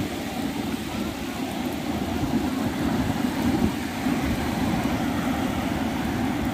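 Surf breaking and washing up the beach: a steady rush of waves.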